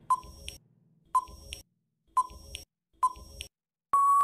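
Countdown-timer sound effect: a short electronic beep with a couple of clicking ticks once a second, four times, then a long steady beep near the end as the timer runs out.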